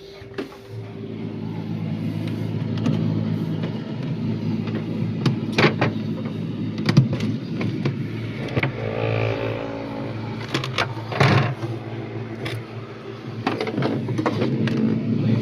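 Steady low hum, like a motor or mains hum, with scattered sharp clicks and knocks, the loudest near the middle and again a few seconds later.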